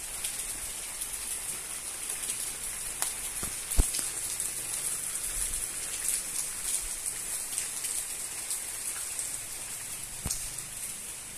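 Heavy monsoon rain falling steadily on trees and ground: an even hiss with many small scattered drop ticks. One sharp tap stands out about four seconds in.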